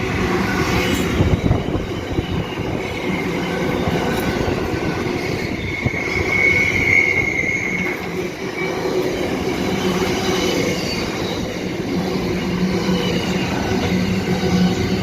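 Freight train's wagons rolling past with a steady rumble and rattle of wheels on rail, and a high wheel squeal that swells about six to eight seconds in.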